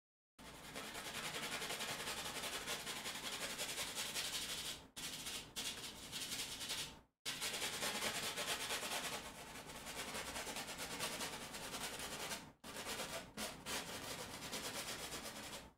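A paintbrush scrubbing green paint onto a stretched canvas, a steady scratchy rubbing in long runs with a few brief pauses between strokes.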